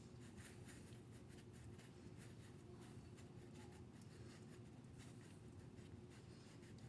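Faint, irregular scratching strokes of a utensil stirring cake batter in a bowl, over a low steady room hum.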